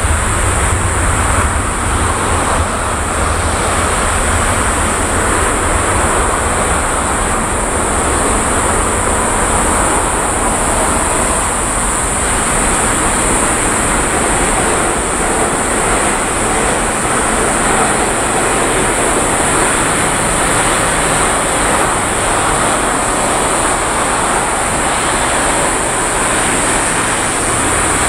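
Jet engines of a Boeing 777 freighter (GE90-110B1 turbofans) running at taxi power: a steady loud rush and whine with a high hiss above it. A deep rumble is strongest for the first several seconds and then eases as the aircraft rolls past.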